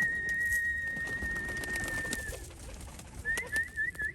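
A person whistling to call pigeons in: one long steady whistle held for about two seconds, then a quick run of short rising whistle notes near the end. Pigeons coo faintly beneath it.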